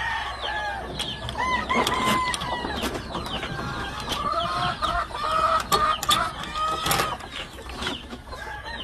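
Many gamefowl calling at once: hens clucking and roosters crowing, overlapping throughout, with scattered sharp clicks.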